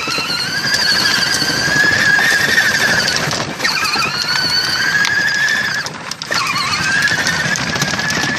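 Fisher-Price Jeep Hurricane ride-on toy's electric drive motors and gearbox whining as it drives, a high steady whine that briefly drops out about three and a half and six seconds in.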